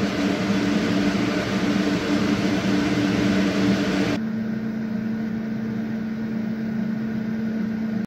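Computer cooling fans in a noise test: the radiator fans of an ASUS ROG Strix LC 360 RGB liquid cooler running at full speed, a loud, steady rush of air with a low hum. About four seconds in, this switches to a slightly quieter, less hissy steady fan sound with a single steady hum, from an ARCTIC BioniX P120 A-RGB 120 mm case fan.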